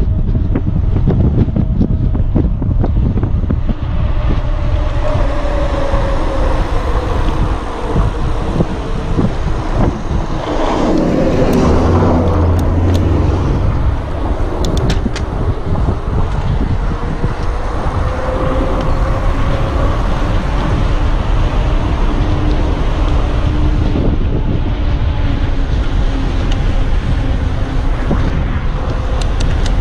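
Wind buffeting the camera's microphone as a bicycle descends a paved road at speed. About eleven seconds in, a motor vehicle's rumble swells louder for a couple of seconds.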